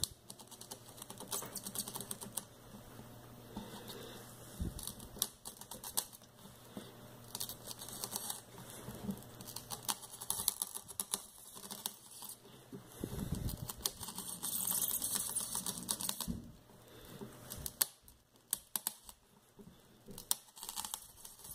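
12 mm × 1.75 pitch tap being turned by hand through plexiglass, cutting threads: faint, irregular small clicks and scratchy creaks as the tap bites into the plastic.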